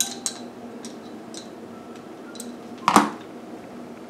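Small metal clicks of a hand driver working the cylinder head bolts of a Saito FA-150S four-stroke model engine, then one louder clatter about three seconds in.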